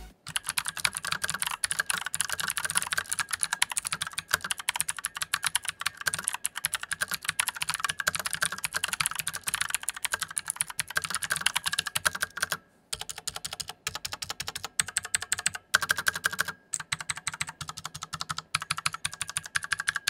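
Typing on a full-size mechanical keyboard with clicky Otemu Blue switches and round typewriter-style ABS keycaps: a fast, dense run of sharp key clicks, with a few short breaks past the middle.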